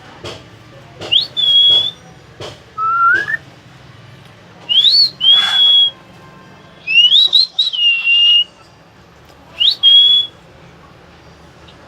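Hill myna whistling: about five loud, clear whistles, most rising quickly and then holding a steady high note, one lower and one warbling, with a few sharp clicks near the start.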